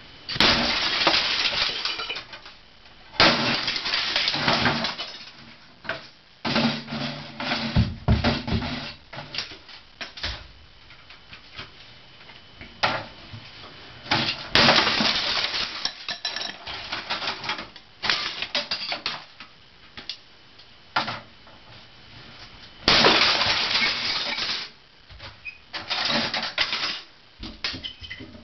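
A hammer smashing brittle plastic items: flurries of rapid blows with the plastic cracking and shattering, in bursts of one to two seconds with short pauses between them.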